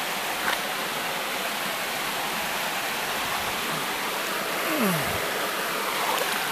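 Steady rush of a mountain stream flowing over rocks, with a hand dipping into the shallow water to lift out a stone. A short falling tone sounds just before five seconds in.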